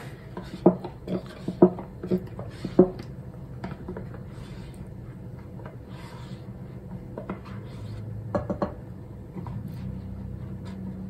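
A white spatula scraping and knocking against a stainless-steel saucepan and a paper carton as thick, partly set green curry is scraped out of the carton into the pan. There are five or six sharp knocks in the first three seconds and a few more about seven to nine seconds in.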